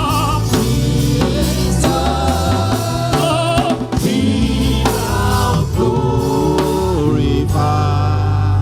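Gospel worship song with voices singing over a band with bass and drums, settling onto a long held chord near the end.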